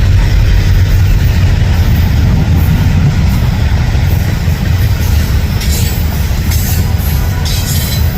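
Train passing, a loud steady heavy rumble of rolling stock, with short bursts of sharper, higher wheel noise in the last few seconds.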